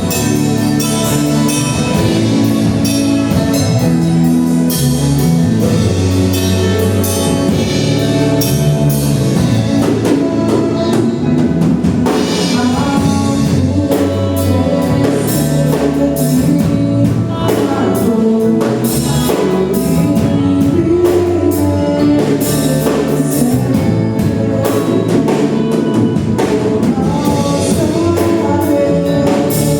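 Gospel worship band playing with drum kit, with singing over it; the music is loud and steady throughout.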